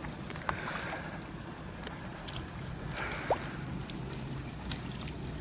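Kayak paddling through floodwater: paddle strokes dipping and splashing, with water dripping and lapping against the hull and a few small knocks.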